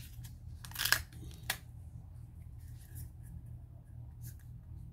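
Small plastic packet crinkling and tearing as it is pulled open by hand, with a sharp crackle about a second in and a shorter one half a second later, then faint rustling.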